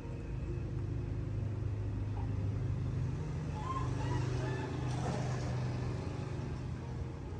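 A low, steady rumble like a motor vehicle's engine, with a few faint short chirps about four seconds in.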